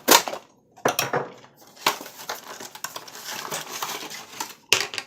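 A cardboard box being opened by hand and plastic toy track pieces handled: a few sharp clatters and knocks with rustling and crinkling in between.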